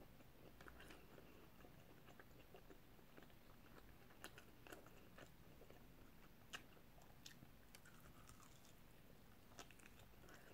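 Faint chewing and small wet mouth clicks from a person eating a salt and pepper rib off the bone, with scattered soft ticks.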